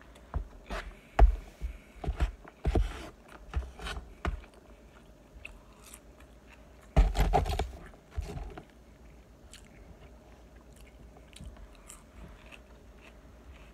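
Close-up eating sounds: chewing and crunching on lettuce and food, with a metal spoon scraping and clicking in a takeout container. The loudest moment is a one-second burst of scraping about seven seconds in, after which only a few faint clicks follow.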